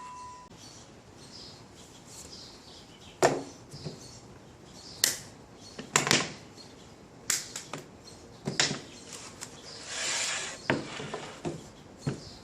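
Scattered wooden knocks and clunks, a dozen or so separate hits with quiet gaps between them, and a short rustle about ten seconds in: boards, template and tools being handled on a workbench.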